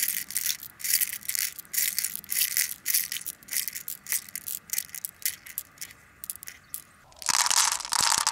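Pearls clicking and rattling against each other and the freshwater mussel's pearly shell as fingers rake them out of the mussel flesh. About seven seconds in, a louder, denser rattle starts as a handful of pearls is dropped into the shell.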